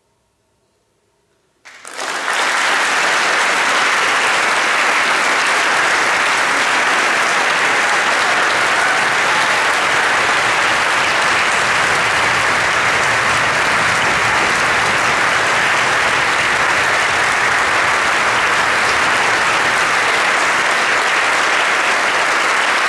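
A hush, then audience applause starts suddenly about two seconds in and carries on loud and steady.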